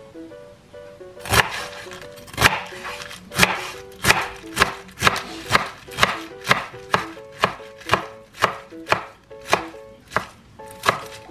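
Kitchen knife chopping Napa cabbage on a bamboo cutting board: sharp chops starting about a second in, about two a second and quickening slightly, over light plucked background music.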